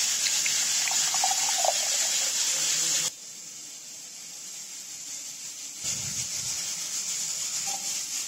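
Liquid pouring through a mesh strainer into a steel pot: mango juice being strained off its pulp. A steady gushing splash, loudest for about the first three seconds, then dropping to a lighter trickle and picking up again about six seconds in.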